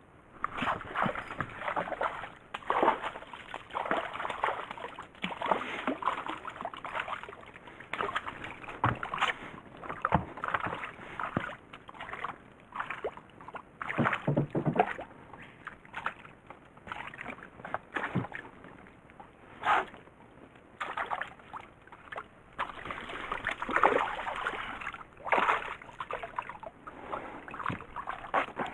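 Water splashing and sloshing in irregular bursts as a hooked largemouth bass thrashes at the surface beside a small boat.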